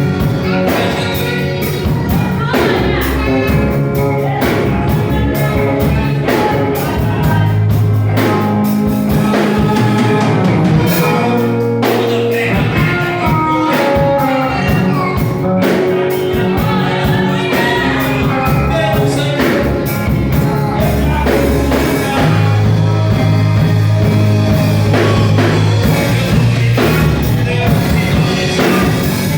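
Christian worship music: singing over a band with bass and drums.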